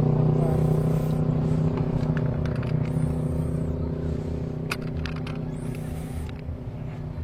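Two-stroke engine running steadily at low revs, growing gradually quieter, with a few light clicks about halfway through.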